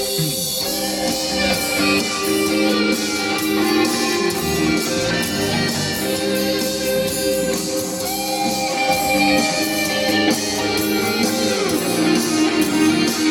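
Instrumental music with guitar.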